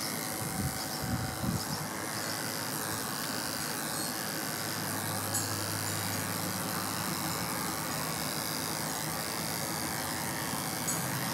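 Corded electric pet clippers running steadily as they are pushed through a small dog's coat.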